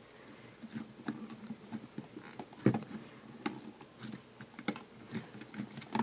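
Lego Technic plastic pieces clicking and rattling as they are handled and pressed together, with irregular small clicks and one sharper snap about two and a half seconds in.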